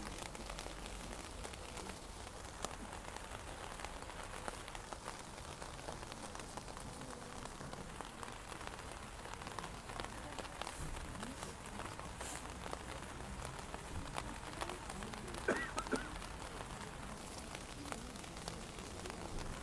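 Steady rain falling, with many light ticks of drops striking umbrellas. A short louder sound comes about three-quarters of the way through.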